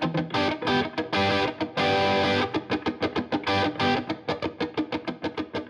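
Intro music: a fast, rhythmic electric guitar riff with distortion.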